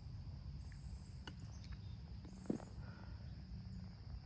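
Golf club clipping the ball on a short chip shot: a single sharp click about a second in, with a duller thump about a second later. Under it, a steady high chirring of insects and a low wind rumble.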